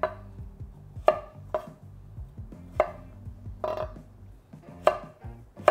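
Chef's knife cutting down through carrot onto a wooden cutting board, a sharp knock about once a second, six cuts in all at an uneven pace.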